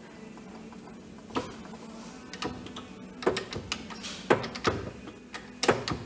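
Steel parts and tooling being handled on an arbor press: a string of sharp metallic clicks and knocks, starting about a second and a half in, as pieces are set down and knocked against the steel press bed and ram.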